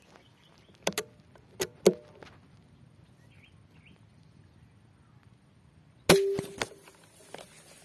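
A single sharp shot from a scoped hunting gun about six seconds in, with a short metallic ring after it, preceded by a few light clicks about a second in. Faint bird chirps are heard between them.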